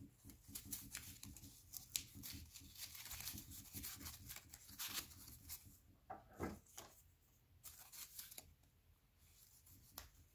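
Faint, intermittent rustling and scraping of cardboard strips cut from paper towel and toilet paper rolls as they are bent and slid through a woven basket, with a slightly stronger rub about six and a half seconds in.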